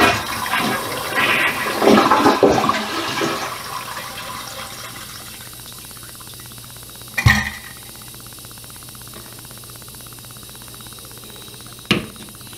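Toilet flushing with its water supply shut off, so the tank drains without refilling: a loud rush of water that dies away over the first four seconds or so, leaving a faint hiss. A single knock about seven seconds in.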